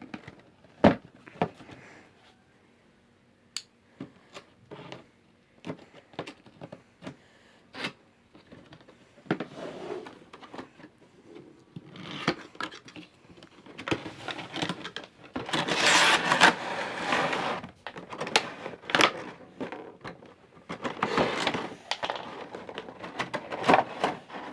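Toy packaging being handled and opened by hand: scattered clicks and taps, then longer stretches of rustling and scraping, loudest in the middle and again near the end.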